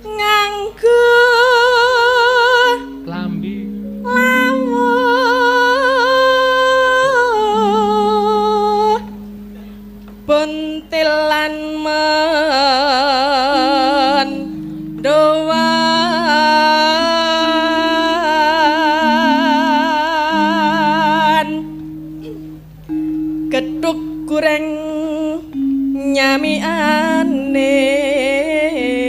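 A sinden, a female Javanese gamelan singer, sings long held notes with a strong wavering vibrato into a microphone, in several phrases with short breaks. Under her, gamelan accompaniment holds steady low notes that move step by step.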